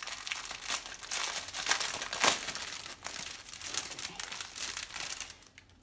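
Plastic packaging crinkling and rustling in the hands as it is tugged at and won't open, loudest about two seconds in and dying away near the end.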